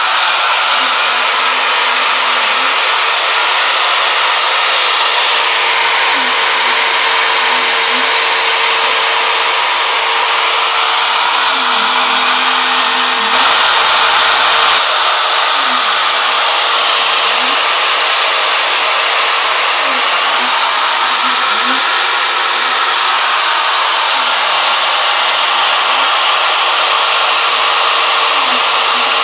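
CNC router's spindle motor running steadily at high speed, a loud whirring hiss with a steady whine, as the machine mills. Fainter low tones rise and fall every few seconds as it moves.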